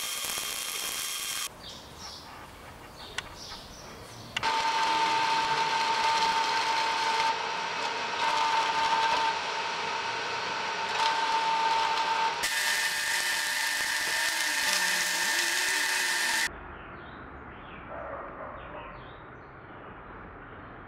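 Metalworking on a stove built from steel car rims, heard in abruptly cut clips. It opens with the crackling hiss of arc welding. A power tool then runs steadily with a high whine for several seconds before cutting off suddenly, and after that it is much quieter.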